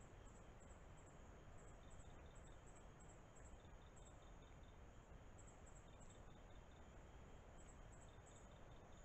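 Faint night insects chirping, crickets by the sound of it: a high chirp repeating in pairs and little groups, with a lower chirp coming in short runs now and then, over a steady low hiss.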